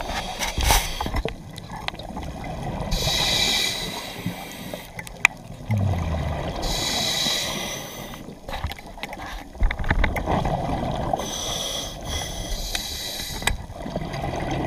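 Scuba diver breathing through a regulator underwater: four hissing inhalations of about a second each, with bursts of bubbling exhalation between them. A few sharp clicks and knocks of gear being handled, the loudest a single click about five seconds in.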